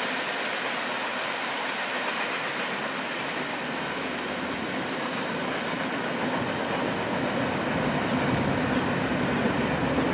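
Train rolling past, a steady rumble and rattle of wheels on the rails that grows deeper and slightly louder in the second half.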